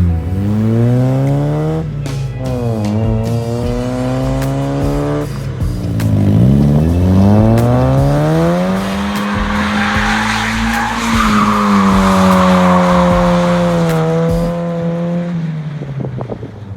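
Mazda Miata four-cylinder engine revving up and down several times while the car does donuts. Tyres squeal in the middle.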